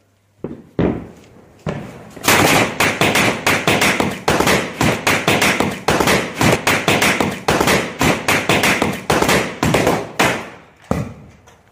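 Diwali firecrackers going off in a rapid series of sharp bangs. A few single bangs come in the first two seconds, then a dense crackle of several bangs a second for about eight seconds, with one last bang near the end.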